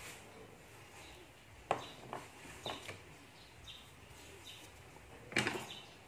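A few light clicks and knocks of kitchen items being set down and picked up, the loudest a short clatter about five seconds in, over quiet room tone. Faint short high chirps come now and then.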